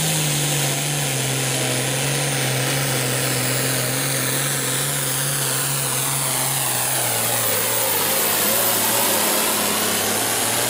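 International Harvester 1066 hot farm pulling tractor's turbocharged diesel engine running flat out under load as it drags the weight-transfer sled down the track, loud and steady throughout. High whines fall in pitch through the second half.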